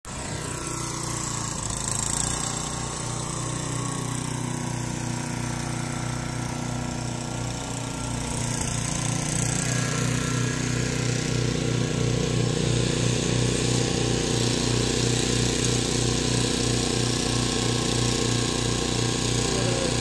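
Gas-powered walk-behind snowblower engine running steadily with a pulsing low drone, growing louder about eight to ten seconds in.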